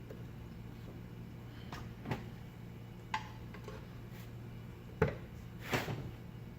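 Screwdrivers working on a ring fan's motor housing to pry it apart: four separate sharp metallic clicks and knocks, one with a brief ring, and a longer scrape near the end. A steady low hum runs underneath.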